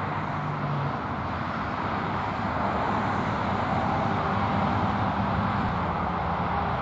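Steady rumble and hiss of road traffic, with no distinct events standing out.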